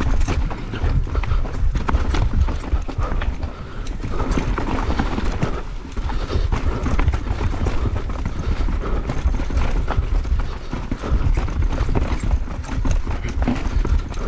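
Mountain bike rattling and clattering over rocky trail: a dense run of irregular knocks from the tyres, chain and frame, over a heavy low rumble on the microphone.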